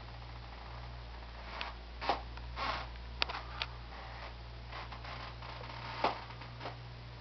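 Old wooden floorboards creaking and knocking under footsteps, about eight short irregular creaks with the loudest near two and six seconds in, over a steady low hum.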